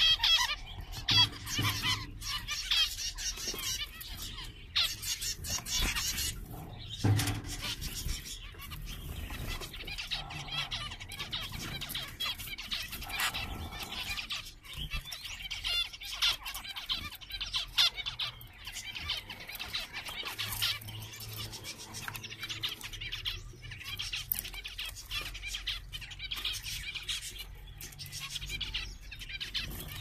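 A flock of zebra finches chirping, with many short overlapping calls all through, over a low steady hum. There is a brief thump about seven seconds in.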